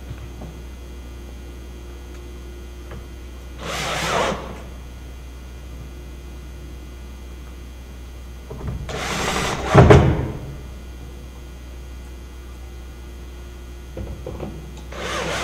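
Cordless drill driving screws through an aluminum Panelclip hanging strip into plywood. It runs in three spurts: a short one about four seconds in, a longer and louder one near ten seconds, and another starting near the end.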